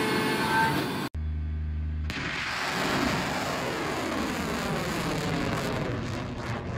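Ballistic missile launch: after a short noisy passage and a hard cut about a second in to a low rumble, the rocket motor's roar sets in about two seconds in as a broad rushing noise that slowly fades as the missile climbs away.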